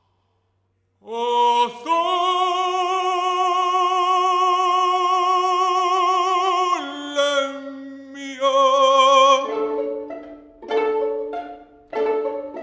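A man singing alone in an operatic style: after a second of silence, a short note and then one long note held with vibrato for about five seconds, followed by two shorter, lower notes. In the last few seconds violins begin playing short plucked notes, pizzicato.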